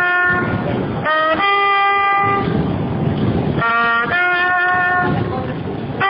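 A trumpet playing a slow melody solo: phrases of a few long held notes, broken by short pauses for breath, over a steady background hum of noise.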